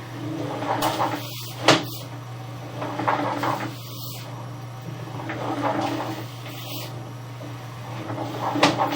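Sewer inspection camera being pushed through a drain pipe: scraping and rustling bursts about every two and a half seconds, with a sharp knock just under two seconds in and another near the end, over a steady low electrical hum.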